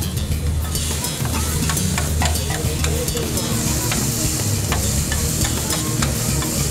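Strips of meat and chopped green vegetables sizzling on a flat steel griddle, with metal spatulas scraping and clicking against the plate as they are stirred. The sizzle grows stronger about a second in, over a steady low hum.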